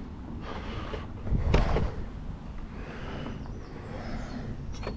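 Wind rumbling on a handheld phone's microphone, with a single sharp knock about one and a half seconds in.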